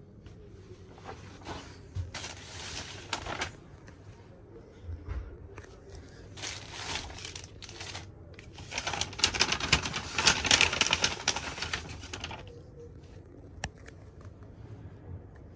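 Paper and plastic wrapping rustling and crinkling as it is handled, in irregular bursts, longest and loudest from about nine to twelve seconds in.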